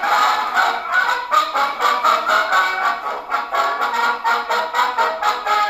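A 78 rpm record playing a tune with a steady beat on a hand-cranked tabletop acoustic gramophone. It has the thin, nasal horn sound of acoustic playback, with no deep bass.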